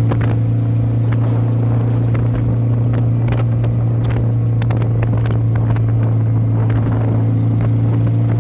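Benelli Patagonian Eagle 250's two-cylinder 250cc engine running through a free-flow aftermarket exhaust while riding at steady speed: a loud, deep, steady drone that holds one pitch, with scattered short crackles.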